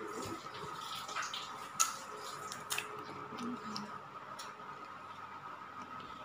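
A few light, sharp clicks and taps as hands handle crisp pani puri shells at a bowl, the sharpest about two seconds in, over a faint steady background tone.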